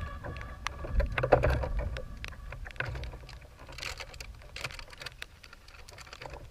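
Scattered small knocks and clicks of gear being handled on a plastic fishing kayak, busiest in the first two seconds and thinning out after, over a low rumble.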